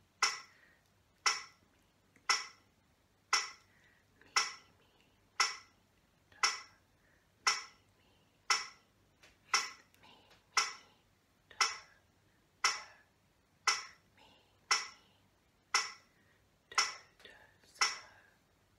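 Metronome clicking a steady beat about once a second, with a few fainter clicks between some of the beats.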